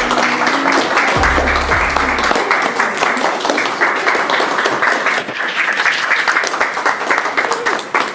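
Applause from a small group of guests, many hands clapping steadily, over the tail of a pop song whose bass drops out about two seconds in.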